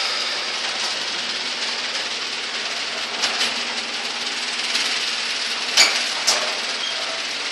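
Craftsman half-horsepower garage door opener running, the door travelling on its track with a steady mechanical rumble and a faint low hum. Two sharp clicks come a little before the end.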